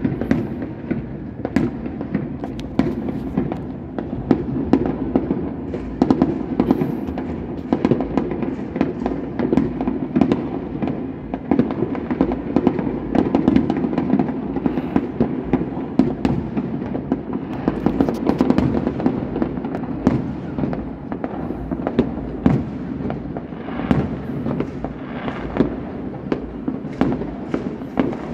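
Many fireworks and firecrackers going off across a city at once: a dense, unbroken crackle of bangs over a steady rumble.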